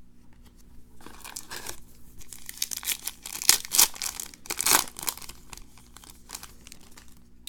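A trading-card pack wrapper being torn open and crinkled by hand: a run of crackling, tearing rustles from about a second in, dying away near the end.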